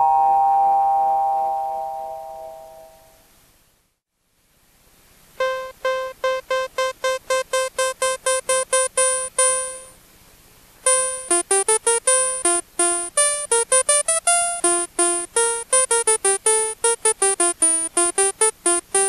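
ARP Odyssey Mark I synthesizer. A ring-modulated synth-bell tone dies away over the first three seconds or so. After a short gap, a simple clav patch with short attack and decay through a resonant filter plays quick staccato notes: first one repeated pitch at about four notes a second, then from about halfway a moving melodic line.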